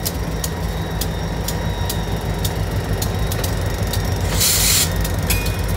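Indiana & Ohio Railway diesel locomotives rolling slowly past, their engines running with a steady low rumble and sharp clicks about twice a second. About four and a half seconds in there is a short burst of hiss, followed by a brief high squeal.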